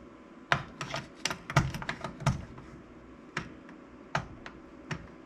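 Light irregular clicks and taps of a straight edge being set down and worked across a pinball drop target and the playfield around it, a quick cluster in the first couple of seconds, then a few scattered taps.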